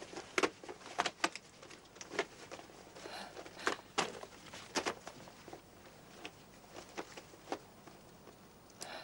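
A leather travel bag being handled and packed: scattered soft clicks and knocks, thick in the first few seconds and thinning out after about five seconds.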